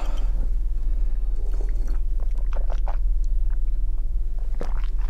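Close mouth sounds of a person eating and drinking: chewing, then small sips and gulps of tea from a glass mug, with a few soft clicks. A steady low hum runs underneath.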